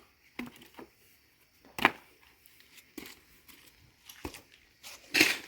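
Pieces of firewood knocking against each other as they are stacked into a bonfire pile: a few sharp separate knocks, the loudest about two seconds in and a slightly longer clatter near the end.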